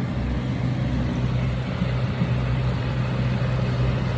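Outboard motor on a Bar Crusher 575c boat running steadily at an even pitch, with a constant rush of noise over it.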